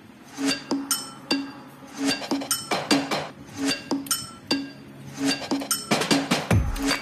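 Background music starting about half a second in: a run of struck, ringing notes at an uneven lively pace, with a deep bass coming in near the end.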